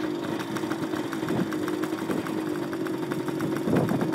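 Small two-stroke motorbike engine idling steadily, with short knocks near the end.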